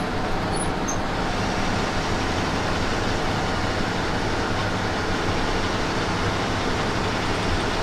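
Steady engine and road noise of a moving bus, heard from inside the cabin: a low engine hum under an even road hiss.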